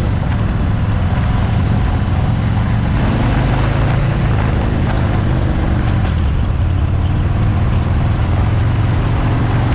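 A 2018 Harley-Davidson Fat Bob's V-twin engine running steadily under way, picked up by a handlebar-mounted camera.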